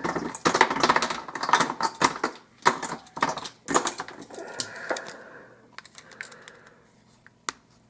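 Rapid metallic clicking and rattling of an Abus 83/45 padlock being worked with its key while its tight-fitting core is forced out of the body, thinning to a few separate clicks after about five seconds.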